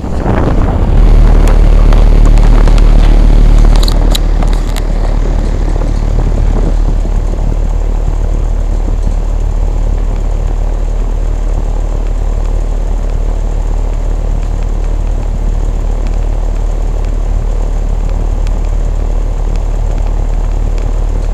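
Carrier central air-conditioner condensing unit running close by: a loud, steady hum and rush of air from its compressor and condenser fan. The sound sets in suddenly and is loudest for the first few seconds, then holds steady.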